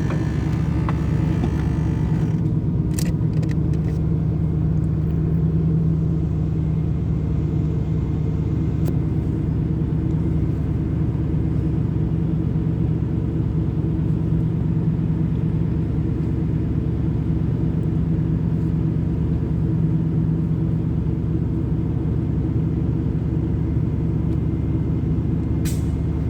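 1986 Camaro IROC-Z's V8 idling steadily, a rough idle that shows up once the engine is warm. A few faint clicks come through about three seconds in and again near the end.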